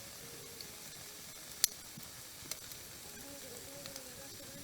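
Wood campfire burning: a steady hiss with sharp crackling pops, the loudest about one and a half seconds in, and a faint wavering whistle near the end.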